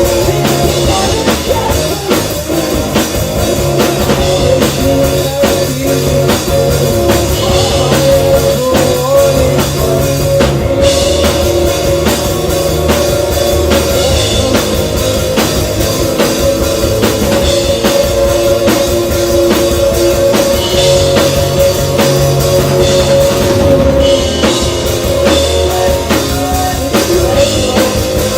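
Live rock band playing an instrumental stretch: loud distorted guitars and bass over a drum kit, recorded from the audience.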